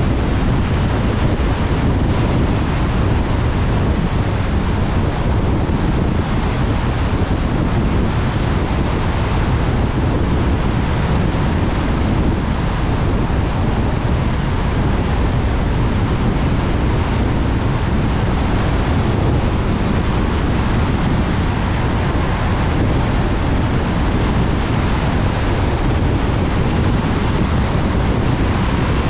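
Steady road noise from a car driving on wet roads in the rain: a constant rumble of tyres and wind with no changes.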